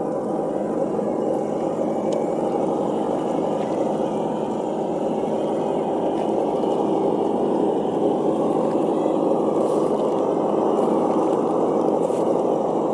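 Simulated engine sound from a Reely sound module in a Traxxas TRX4 RC crawler, running steadily and getting a little louder about halfway through.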